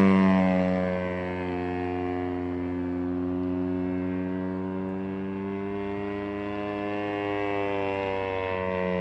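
Pitts S1 aerobatic biplane's engine and propeller running in flight overhead. The pitch drops over the first second as the plane passes, then drifts slowly up and down through the manoeuvres, swelling briefly near the end.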